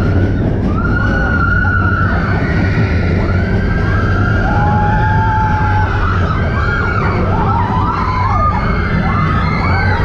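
Expedition Everest roller coaster train running with a steady loud rumble, while its riders scream in many overlapping rising and falling voices.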